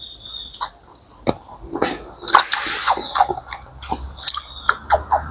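Snow crab leg shell being cracked open and eaten: a series of sharp cracks and snaps, with a longer crackling break about halfway through.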